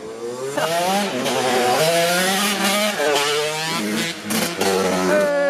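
Dirt bike engine revving hard, its pitch climbing and dropping several times as the rider opens and shuts the throttle and shifts.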